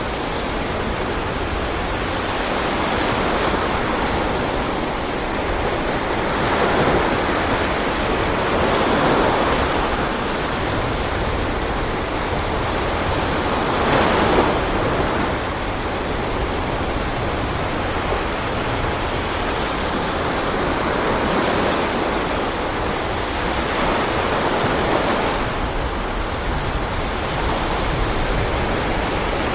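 Steady rush of open sea water and wind against a fishing boat, swelling louder every few seconds as waves pass.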